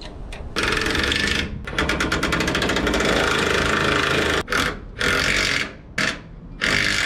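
Cordless impact wrench loosening a sway bar end-link nut on a truck's front suspension: a run of about four seconds with rapid hammering, then three short bursts in the second half.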